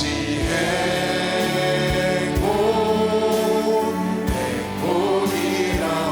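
Church worship music: a group singing a praise song in Korean, holding long notes over instrumental accompaniment with a low recurring beat.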